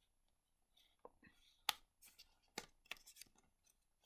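Faint handling of heavy cardstock pages and flaps in a chunky handmade junk journal: soft paper rustles and about five crisp little clicks and taps as flaps are lifted and turned.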